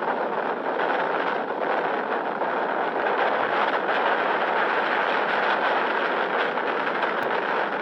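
Steady, loud rushing noise of strong wind, even and unbroken.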